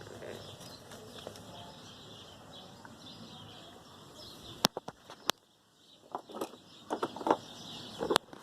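Faint birds chirping in the background. About halfway through there are three sharp clicks, followed by a few short knocks like something being handled.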